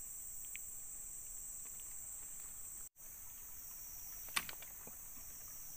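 Steady high-pitched insect chorus, cut off for an instant about three seconds in, with a single sharp click about four seconds in.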